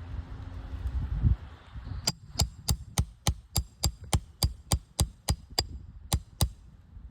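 Roofing hammer tapping a steel nail puller in a quick, steady run of about fifteen ringing metal-on-metal strikes, working out a shingle nail, with a short pause before the last two. A low thump comes about a second in, before the tapping starts.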